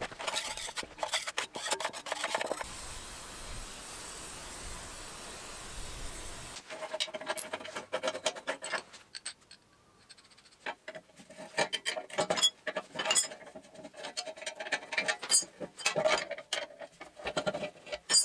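Steel engine/gearbox mount parts being bolted together by hand: scraping and rubbing at first, then, after an abrupt change about six seconds in, irregular metal clinks, scrapes and wrench clicks as bolts are threaded and the brackets fitted.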